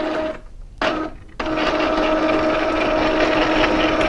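Heng Long M1A2 Abrams RC tank's sound unit playing a simulated engine sound through its small speaker: a steady electronic hum. It cuts out twice in the first second and a half, then comes back steady, as the tank's sound settings are stepped through from the transmitter.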